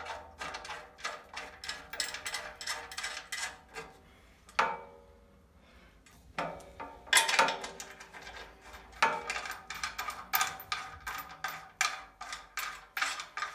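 Quick metallic clicking and tapping of M10 hex bolts and washers against a zinc-plated steel bracket as they are threaded by hand into the steering mount's captive nuts. There is a pause of about a second and a half around the middle.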